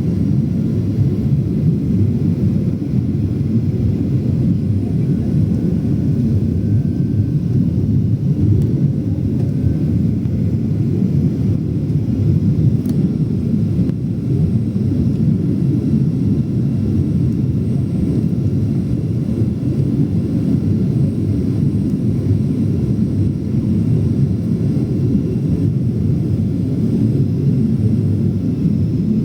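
Steady low rumble of a Boeing 737-800's engines and airflow heard inside the passenger cabin on approach to landing.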